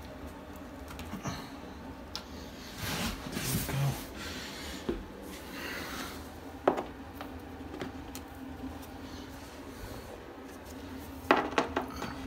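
Cut stone pebble tile pieces being handled and pressed into place: a stretch of rubbing and scraping a few seconds in, a sharp click midway and a quick run of clicks near the end, over a steady low hum.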